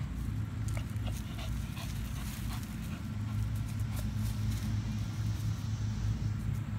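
A Shih Tzu whimpering softly a few times, with a few light clicks, over a steady low rumble.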